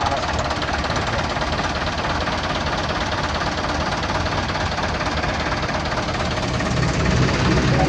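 A 1995 truck's diesel engine idling with a steady clatter, growing louder near the end.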